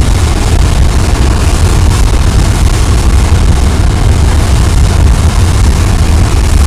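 Loud, steady, deep roar of propane burning as two jet flames from a propane tank, one shooting straight up and one sideways, running without a break.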